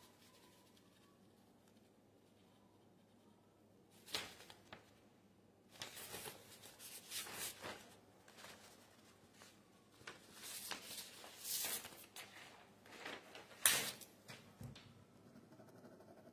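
Sheets of paper rustling and crinkling as they are handled. They come on and off after a few quiet seconds, with one sharper tap or snap near the end.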